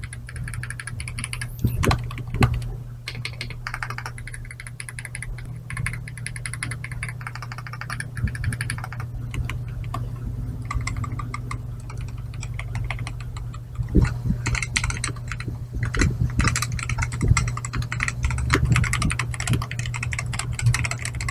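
Continuous typing test on two keyboards: first an Aula F75 with tactile switches, then, partway through, a MAD 60 HE magnetic Hall-effect keyboard with amber switches, which sounds soft and thocky, like a silent linear.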